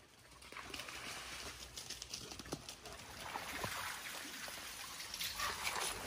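Shallow stream trickling over stones, with a few brief high animal calls.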